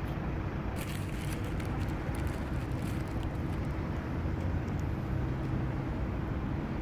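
Steady low mechanical rumble with a constant hum, like an engine running nearby. Over it, faint scratchy strokes of a deshedding trimmer brush raking through a short-haired dog's coat come in for a couple of seconds about a second in, and again briefly later.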